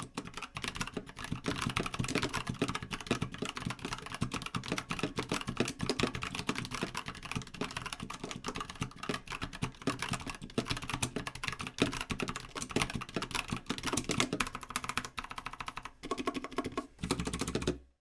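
Fast typing on a Velocifire Mini 60% mechanical keyboard with Outemu Brown switches and double-shot ABS keycaps: a dense, continuous run of key clacks that stops just before the end.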